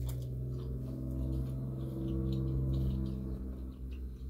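A person humming a long, steady "mmm" with a mouthful of food, trailing off about three and a half seconds in, with faint chewing clicks.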